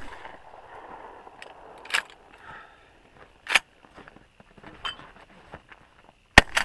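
Shotgun shooting: the rumbling echo of a shot fired just before fades at the start, sharp cracks come about two and three and a half seconds in, and another shot goes off near the end.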